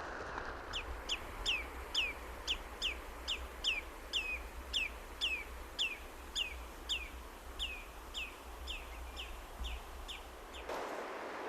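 A bird calling in a long, even series of sharp, high, down-slurred notes, about two to three a second, over a low wind rumble. A louder steady rushing noise comes in near the end.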